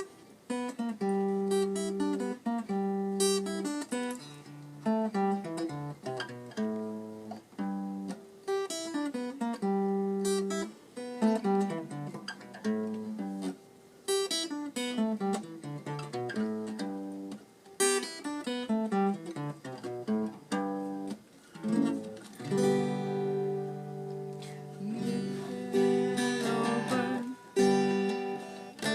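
Acoustic guitar played solo, a picked melody of single plucked notes mixed with strummed chords.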